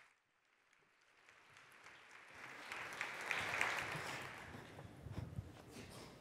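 Audience applause: it fades in after about a second of silence, swells, and then dies away.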